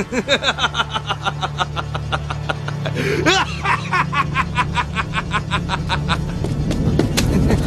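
A man laughing loudly and at length in a fast, unbroken run of 'ha' sounds: a gloating villain's laugh, over low, steady background music.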